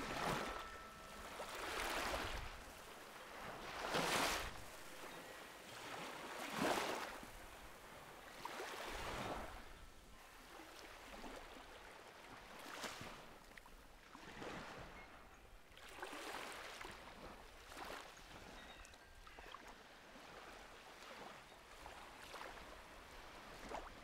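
Small sea waves lapping and washing up onto a sandy beach, one gentle surge every two to three seconds, stronger in the first ten seconds and softer after.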